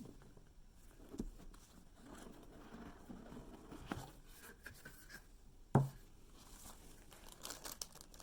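Hands handling a gift box and its packaging: faint scraping and rustling with a few light taps, and one sharp knock about six seconds in.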